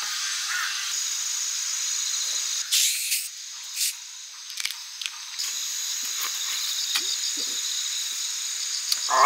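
Insects chirring steadily. About three seconds in, the cap of a plastic Coca-Cola bottle is twisted open with a short fizzing hiss of escaping carbonation, a second brief hiss following, then a few light clicks.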